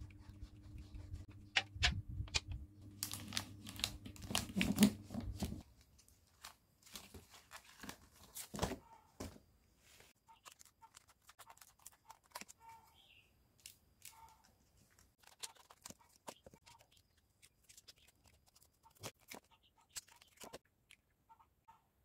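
Scissors snipping thin aluminium drink-can sheet, a run of sparse, irregular crisp clicks and crinkles. For the first five or so seconds, handling clicks and rustles sound over a low steady hum that cuts off suddenly.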